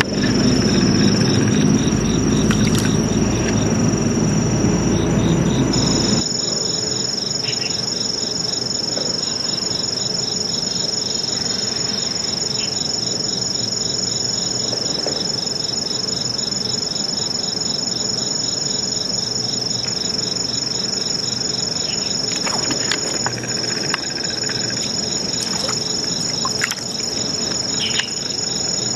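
Crickets and other insects chirping steadily, several high trills over a fast pulsing chirp. A low rumble under them in the first six seconds stops abruptly, and a few brief knocks come near the end.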